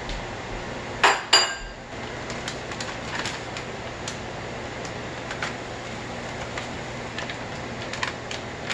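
Metal kitchenware clanking: two sharp, ringing clanks of metal on a stainless steel cooking pot about a second in, then light scattered taps of a metal spoon against the pot as turmeric is spooned in, over a steady low hum.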